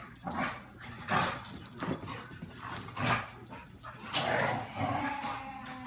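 Two dogs play-fighting, giving short vocal bursts about once a second, with a longer drawn-out tone near the end.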